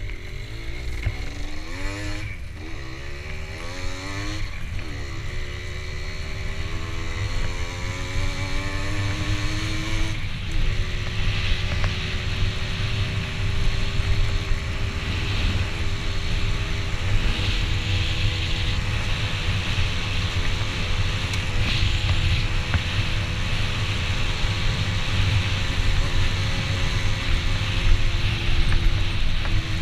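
A vehicle engine under way with a heavy low rumble. It climbs in pitch several times in quick steps during the first few seconds, like shifting up through gears, then runs steadily at an even speed.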